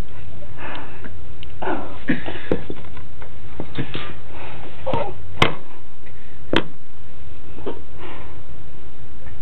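Metal garlic press being worked, with two sharp clicks a little over a second apart past the middle. Around them come short breathy bursts of noise, over a steady low rumble.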